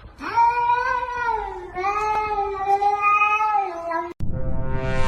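A cat giving two long, drawn-out meows one after the other, the second starting a little under two seconds in; the sound cuts off abruptly about four seconds in.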